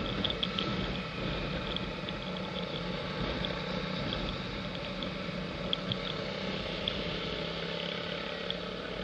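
Motorcycle engine running steadily at low speed through standing water, with tyre and water swish and small high ticks of spray over the engine hum.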